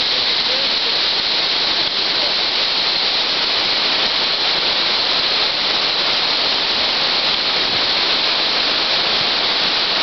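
Steady, loud rushing of a waterfall.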